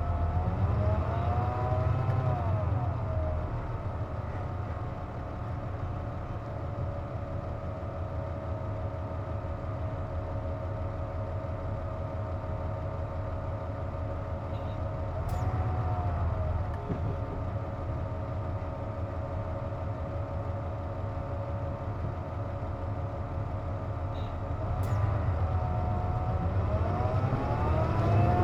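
KC-JP250NTN city bus heard from inside while under way: a steady low engine rumble under a whining tone. The whine rises in pitch as the bus gathers speed in the first couple of seconds, then falls, bumps up briefly around halfway and climbs again near the end. The air conditioning is running, which gives this bus its unusual noise.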